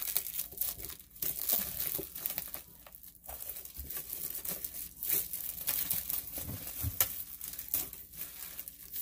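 Packaging being crinkled and torn by hand as a dry-erase board is pulled out of its wrapping, an irregular run of crackles and rustles.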